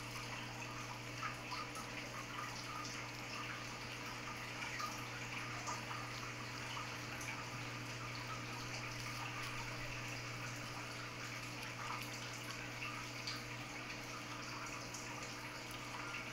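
Persian cat chewing grass blades held in a hand: faint, irregular small crunches and clicks over a steady background hiss and low hum.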